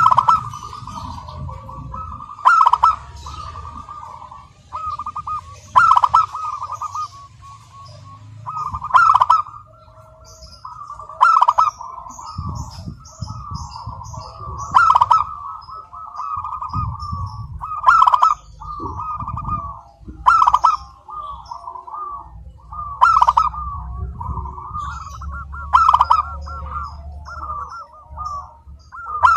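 Zebra dove (perkutut) cooing song, repeated about every three seconds: each phrase opens with a loud note and runs on into a quick, rolling string of softer coos.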